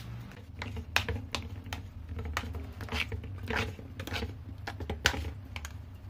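A spoon stirring and mashing soft food in an aluminium pressure cooker, clicking and scraping against the pot in uneven strokes, about two a second.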